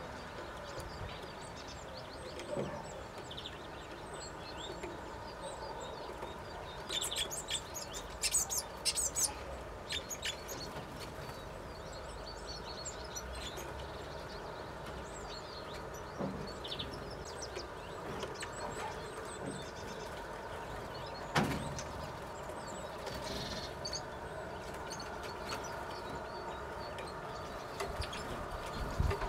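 Great tits at a feeder: scattered short high chirps and calls over a steady background hum, with a cluster of sharp taps about seven to ten seconds in and a single sharp knock a little past twenty seconds.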